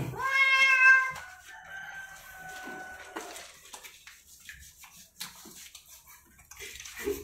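A cat gives one long, loud yowl while being bathed, trailing off over about three seconds, followed by faint scattered knocks.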